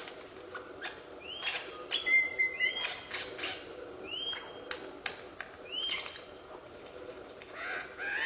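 A bird calling: a short call that sweeps up and then levels off, repeated four times about every one and a half seconds, with a brief flat whistle and many sharp clicks between the calls.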